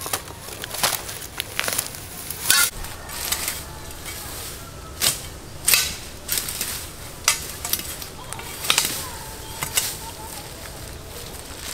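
Irregular sharp snaps and crackles, about a dozen spread unevenly, over a low rustling.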